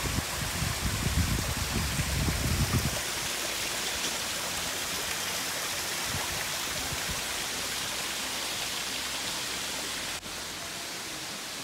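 Steady rushing hiss of a waterfall, with low rumbling in the first three seconds. The level drops slightly and abruptly about ten seconds in.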